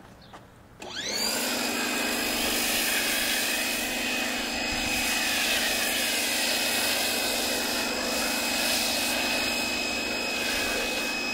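Electric pressure washer starting about a second in with a quickly rising whine, then running steadily with a hiss of spray as it drives a foam cannon.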